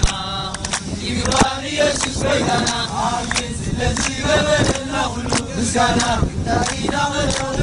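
A group of men singing or chanting together in a repeating phrase, over the steady noise of a motor boat running through the sea.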